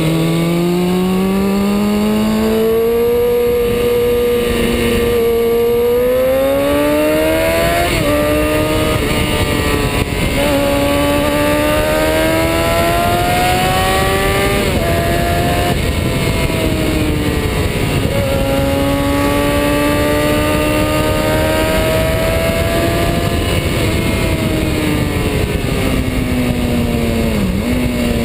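Kawasaki Ninja ZX-6R 636's inline-four engine under way, its pitch climbing under throttle and dropping sharply at several gear changes, over steady wind rush.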